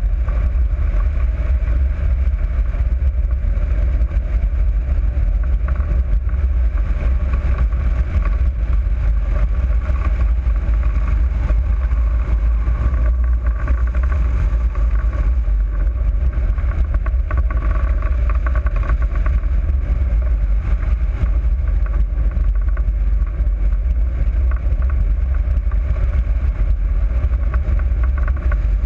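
Wind rushing over the microphone of a camera mounted on a hang glider in flight: a loud, steady low rumble with a fainter rush of air above it.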